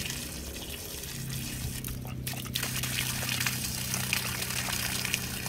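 Water from a repaired SEAFLO 12-volt diaphragm pump splashing in a stream out of an open outlet fitting onto gravel, over the pump motor's steady low hum.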